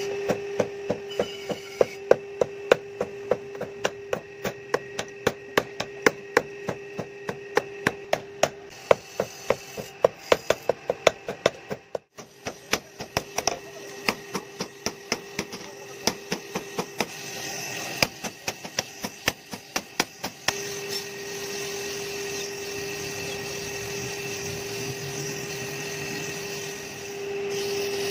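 Hand hammer striking hot steel on an anvil in quick repeated blows, about three a second, with a short break about twelve seconds in; the hammering stops about twenty seconds in. A forge blower hums steadily with a constant whine throughout, plainest once the hammering stops.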